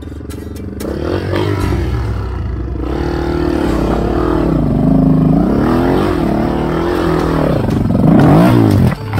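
Honda XR 250's single-cylinder four-stroke engine revving up and down while the enduro bike rides a trail, the revs rising and falling repeatedly and peaking about eight seconds in before a sudden drop.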